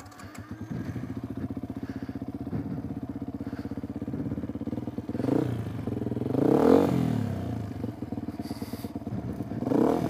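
Beta RR 125 dirt bike engine running under way at steady low revs, with the revs rising and falling a couple of times past the middle.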